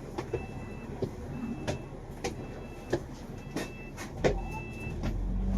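Inside a double-decker bus: a short high beep sounds about once a second among knocks and rattles of the body. Near the end the engine note rises steadily as the bus gets under way.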